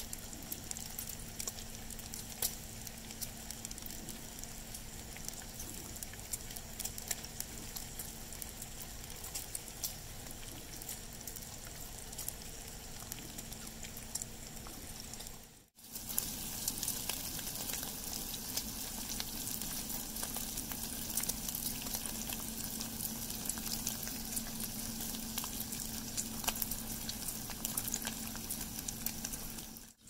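Bacon sizzling and popping on a hot flat-top griddle, a dense steady crackle of spitting fat. The sound drops out briefly about halfway through and comes back a little louder.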